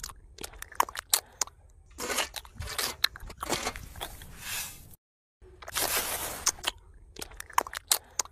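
A miniature trowel scraping wet cement mortar off a ceramic plate and smearing it along a course of miniature bricks: a series of gritty scrapes mixed with sharp clicks of the trowel against the plate, cutting out briefly about five seconds in.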